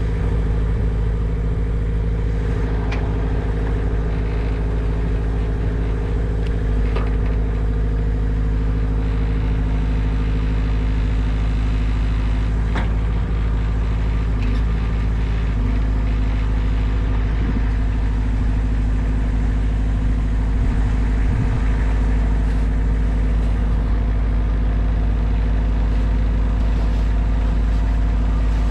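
A large engine idling steadily at a constant speed, with a few faint clicks over it.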